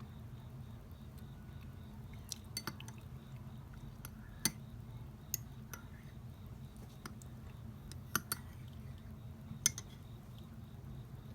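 A spoon clinking against glass: about eight short, sharp clinks at irregular intervals, a pair of them close together past the middle, over a steady low background hum.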